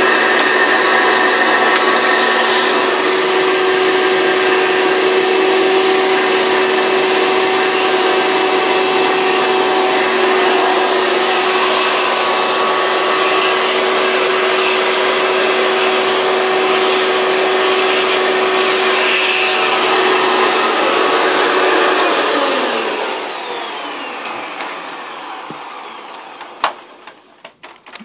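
1993 Hoover Legacy Supreme upright vacuum cleaner's 7.3-amp motor running at full speed on the hose and upholstery tool, a steady whine. About 22 seconds in it is switched off and the motor spins down, falling in pitch and fading over a few seconds. A few clicks follow near the end.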